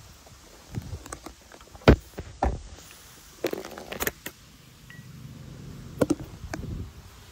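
Handling noise from the camera being picked up and moved: a handful of knocks and bumps against the microphone, the sharpest about two seconds in, over a low wind rumble.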